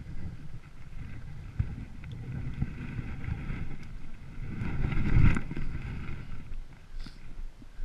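A hiker's boots stepping down a snow-covered trail, heard as uneven low knocks over a steady rumble of clothing and wind rubbing on a body-worn microphone. The loudest jolt comes about five seconds in as the camera swings.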